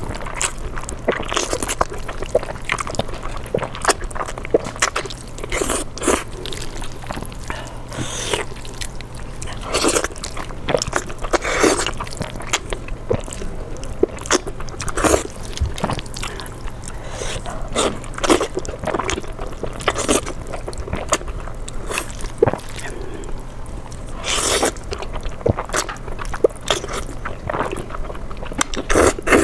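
Close-miked eating of spicy fire chicken noodles: irregular wet chewing, biting and slurping noises.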